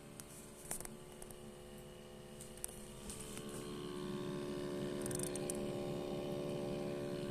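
Xiaomi Smart Humidifier 2 buzzing: a steady hum of several tones that grows louder about three to four seconds in, with a few faint clicks. The buzz is a fault that appeared after eleven months of use.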